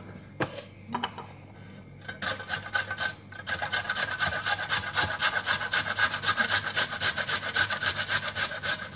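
A carrot being grated on a handheld metal grater: quick rasping strokes, several a second, starting about two seconds in and running steadily from about three and a half seconds on, with a couple of light knocks before the grating begins.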